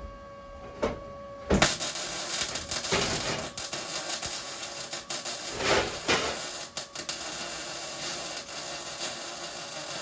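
A metalworking tool starts on the steel bodywork about a second and a half in with a knock, then keeps up a steady, harsh hiss.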